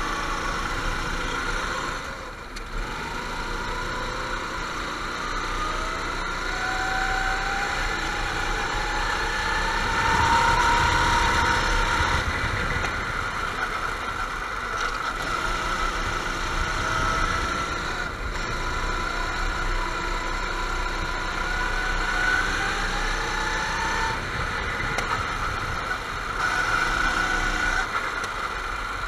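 Go-kart engines running, several karts at once, with repeated rising whines as they accelerate; loudest about ten seconds in.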